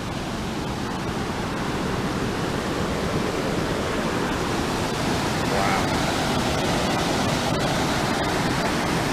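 Stream water rushing down a small rocky cascade, a steady rush that grows louder over the first half and then holds.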